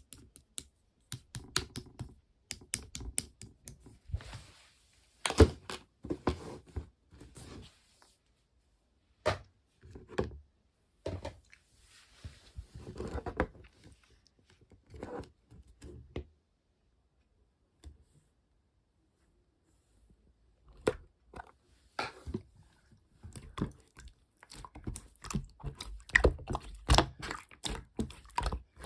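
Irregular clicks, knocks and brief rustling of small objects being handled close to the microphone, with a lull in the middle and denser clicking near the end.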